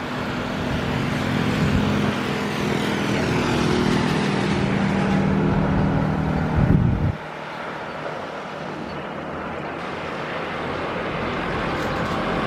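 Twin jet engines of an Airbus A320 airliner running at takeoff power during its takeoff roll, a steady jet roar with a low hum. It drops off abruptly about seven seconds in, then builds again toward the end.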